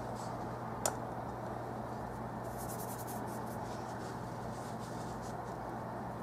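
Paintbrush scratching on canvas in a quick run of short strokes about halfway through, over a steady low hum and hiss. A single sharp click a little under a second in is the loudest sound.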